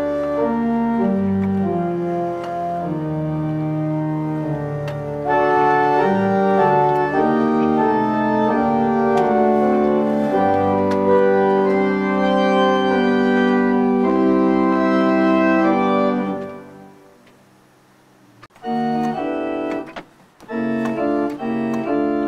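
Henry Willis pipe organ played in sustained, changing chords that grow fuller and louder about five seconds in and stop after about sixteen seconds; after a short pause come a few short detached chords.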